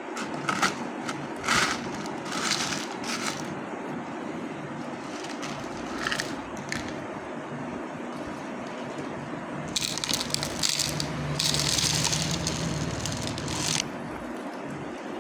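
Gravel and sand rattling and scraping as they are scooped and poured, in short bursts at first, then a longer pour near the end with a low motor hum under it.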